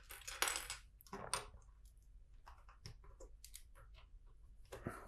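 Loose LEGO bricks clattering as a hand rummages through them, with scattered small plastic clicks. The clatter is heaviest in the first second or so and again near the end.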